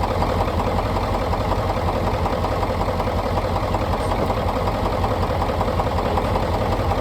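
Ford 7.3 L Power Stroke V8 turbodiesel idling steadily.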